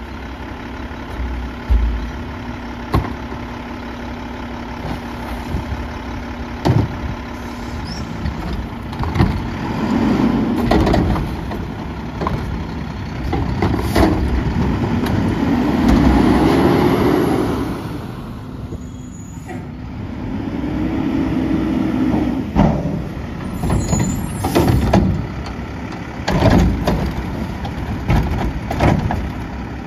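Mack LEU garbage truck with a McNeilus Atlantic front-loader body and Curotto-Can arm, its engine idling and speeding up several times, most strongly about halfway through, as it works the hydraulics. Repeated bangs and thuds of trash and cans striking metal come throughout.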